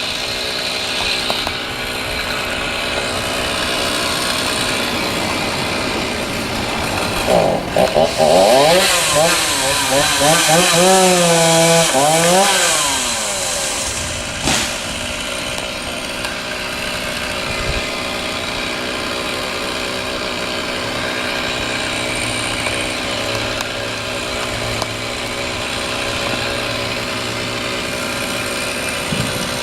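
Chainsaw running steadily. From about 7 to 13 seconds in it gets louder, its pitch rising and dipping as it works, then it settles back to a steady lower run.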